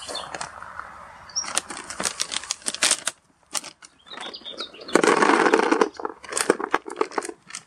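Plastic bags of carp boilies rustling as the baits are poured into a plastic bucket, with runs of quick clicks as they land and a denser rush of pouring about five seconds in.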